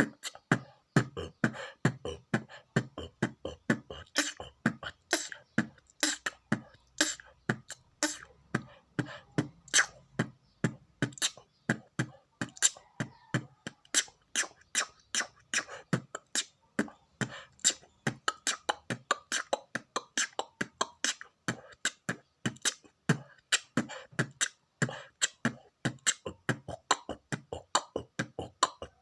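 Beatboxing: a person imitating a drum kit with the mouth, a fast steady run of sharp drum-like hits, about three to four a second, with no pause.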